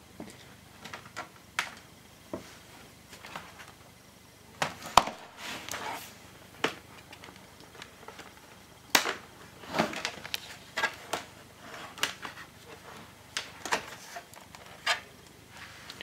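Irregular light clicks and taps from hands handling a laptop's hard plastic bottom case and the camera being moved about, with the sharpest knock about five seconds in.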